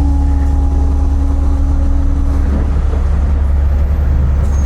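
Scania lorry's diesel engine running with a steady low drone. A steady hum over it fades out about halfway through.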